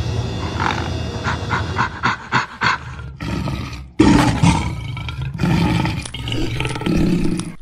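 Big cat sound effect: rough growls and roars in a run of short pulses. A sudden cut about four seconds in leads to louder roaring.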